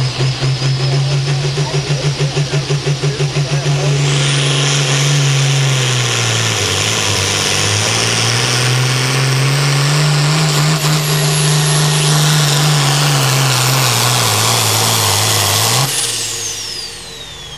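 Hot farm class pulling tractor's turbocharged diesel engine under full load down the track. The engine note pulses unevenly at first. About four seconds in it opens up into a sustained full-throttle run with a high whistle on top, sagging briefly and pulling back up mid-run. Near the end the throttle is cut and the whistle falls away as the turbo spools down.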